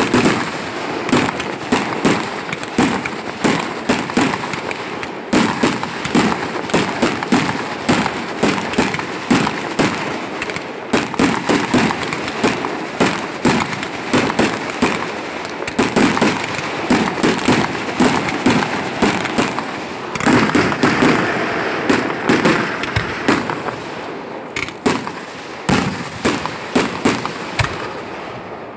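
Consumer fireworks going off in a rapid barrage: sharp pops and bangs, several a second, over continuous crackling, dying down in the last few seconds.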